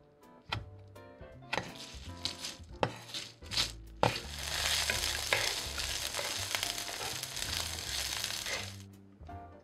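A knife chopping dried red chilies on a wooden cutting board, a few sharp chops, then from about four seconds in hot oil sizzling as dried chilies, peppercorns, garlic and onion are stir-fried in a pan; the sizzle fades out near the end. Soft background music plays underneath.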